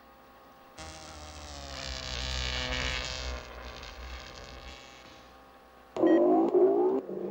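Electronic buzzing drone from a virus-stricken computer, swelling and then fading over a few seconds. About six seconds in a much louder warbling electronic sound starts and breaks up.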